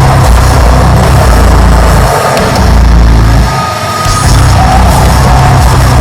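Heavy, distorted deathcore music: down-tuned guitars and pounding bass and drums, played loud.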